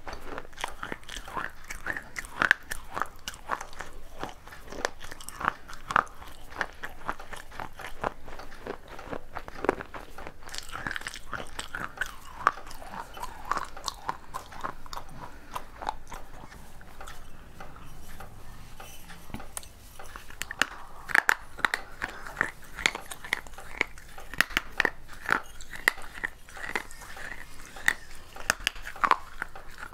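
Close-up crunching and chewing of pieces of baked, unglazed terracotta clay pot: a steady run of dry, gritty crunches, growing louder and sharper about two-thirds of the way in.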